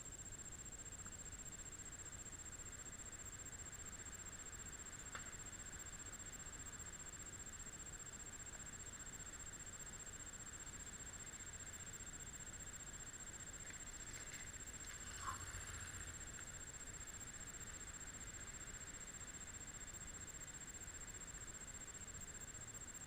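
Faint steady hiss with a constant high-pitched whine. A soft tick comes about five seconds in, and a brief faint chirp about fifteen seconds in.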